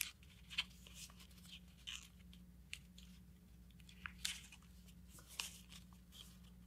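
Faint crinkling and rustling of a sheet of printer paper under the fingers as a small tab is folded, reverse-folded and tucked behind the other layers, in short irregular crackles with no steady rhythm.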